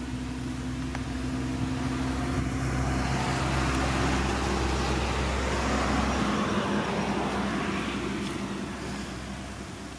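A motor vehicle passing by: its engine and road noise swell to a peak mid-way, and the engine note drops in pitch as it goes past, then fades away.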